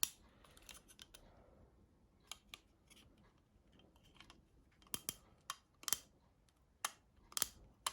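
Small plastic clicks and taps of mobile-phone housing parts being handled and pressed together by hand: a dozen or so sharp ticks, sparse at first and more frequent in the second half.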